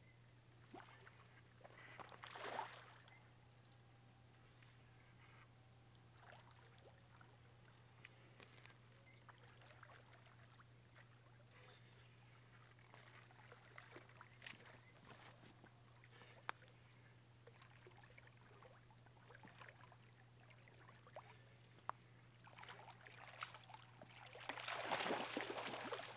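Near silence with a steady low hum, broken by a short water splash about two and a half seconds in and a louder, longer splash near the end: carp breaking the surface of the lake.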